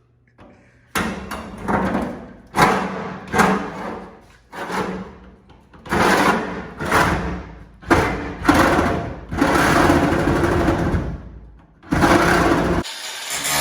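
Power tool cutting through a pickup truck bed's sheet metal in repeated short runs of about a second each, with one longer run of about two seconds near the end.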